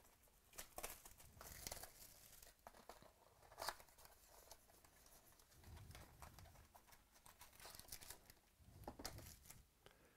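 Faint crinkling and tearing of the plastic wrapping on a mini box of trading cards, with light clicks and taps as the cardboard box is opened and the card packs are taken out.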